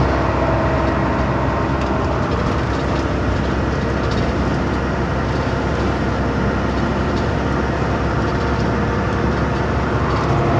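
Heavy truck's engine and road noise heard from inside the cab while driving on the highway: a steady drone that does not change.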